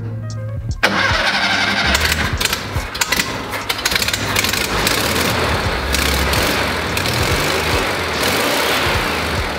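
1970 Volkswagen bus's air-cooled flat-four engine being started: the starter cranks briefly and the engine catches under a second in, then keeps running and idling.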